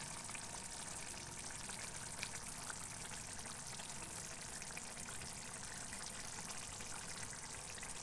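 Tuna fish curry simmering in a black wok on the stove, a steady hiss with small scattered pops and crackles from the bubbling oily gravy.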